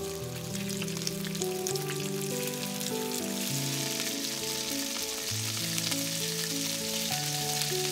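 Strips of raw beef searing in hot oil in a skillet over high heat, a steady sizzle that grows louder about three and a half seconds in as more strips go into the pan. Soft background music with long held notes plays underneath.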